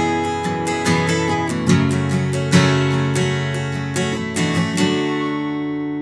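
Acoustic guitar with a sinker redwood top and cocobolo back and sides, played fingerstyle: a run of plucked notes and chords, then, about five seconds in, a final chord left to ring and slowly fade.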